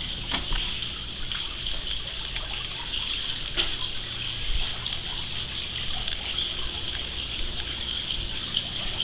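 Steady running, trickling water from the swimming pool, over a low steady hum.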